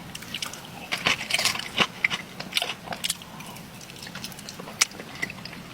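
Close-up eating sounds of a person chewing a bite of cheesecake: irregular soft mouth clicks and smacks, with one sharper click near the end.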